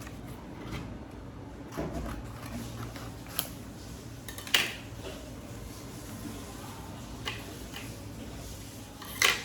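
Paper being handled and folded by hand, with a few short crinkles and taps against a faint steady hum; the sharpest come about four and a half seconds in and near the end.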